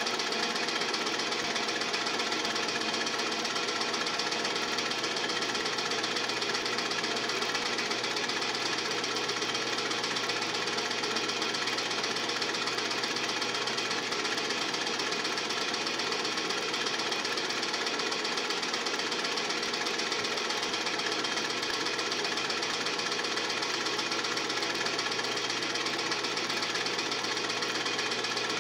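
Steady mechanical clatter of a film projector running, heard on the soundtrack of a transferred silent home movie.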